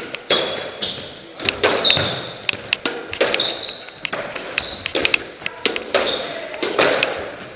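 Squash rally: the ball is struck by rackets and smacks off the court walls, each hit echoing in the court, while players' shoes squeak on the wooden floor again and again.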